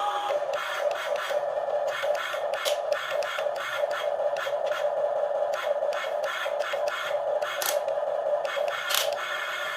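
Small electric gear motors of a toy radio-controlled excavator whining steadily while it works, with frequent clicks and scrapes from its plastic parts and the sand.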